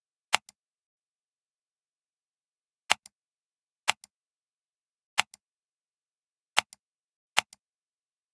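Computer mouse clicking six times at uneven intervals, each click a sharp press followed a moment later by a softer release.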